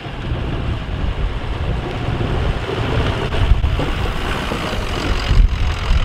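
Pickup truck with a snowplow blade pushing deep snow: the engine running under load and the blade shoving through the snow, with wind rumbling on the microphone.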